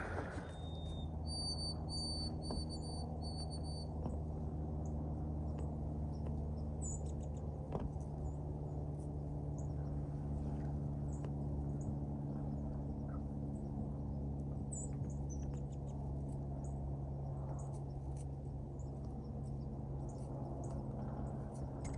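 Quiet outdoor ambience with a steady low hum throughout and faint, scattered bird chirps; about a second in, a quick run of four or five short, high, evenly spaced notes.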